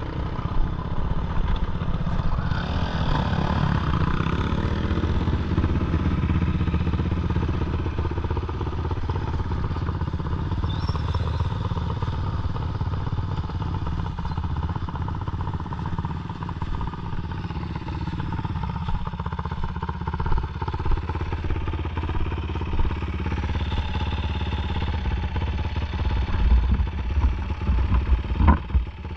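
Sport quad bike's engine idling steadily while the quad stands still, then running louder and more unevenly in the last few seconds.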